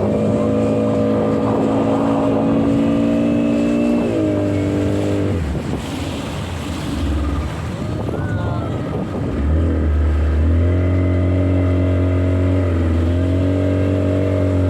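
Motorboat engine running at a steady speed. Its pitch steps down about four seconds in, fades into a rougher noise for a few seconds, then the steady note returns and dips briefly near the end.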